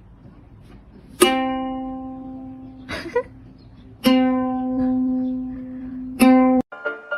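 A single plucked string note, the same pitch each time, played three times with a long fading ring after each, plus a short brief sound between the first two notes; near the end it cuts off abruptly into other music.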